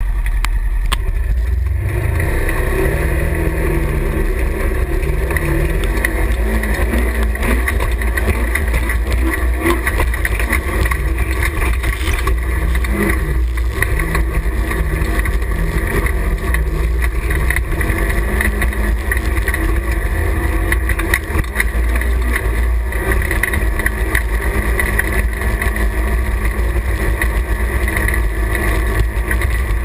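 Side-by-side UTV engine running as it drives, with a steady deep rumble; the engine pitch rises as it speeds up about two seconds in, and again around the middle.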